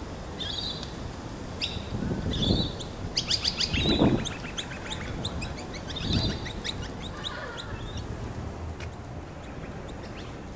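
Birds chirping and calling, with a quick run of short repeated notes about three to five seconds in. A few dull low thumps are heard under them, the loudest about four seconds in.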